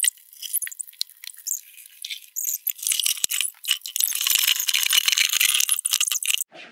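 A tall wooden cupboard being tilted and pushed through a tight doorway: rapid clicks and knocks, then a denser scraping noise from about two and a half seconds in, which cuts off suddenly near the end.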